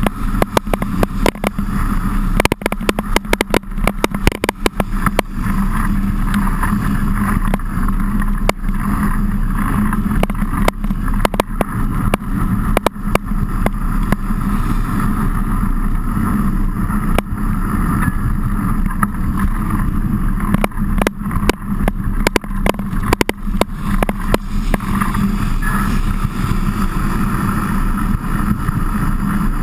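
Ride noise from an action camera on a mountain bike in heavy rain: a steady loud rumble of wind and rolling tyres, broken by frequent sharp clicks and knocks that come in thick clusters a few seconds in and again past the middle.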